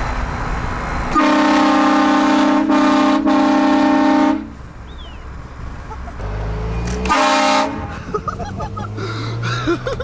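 Hornblasters Shocker air train horn kit fitted to a car, blasting a loud multi-note chord for about three seconds with two brief breaks, then a second short blast a few seconds later.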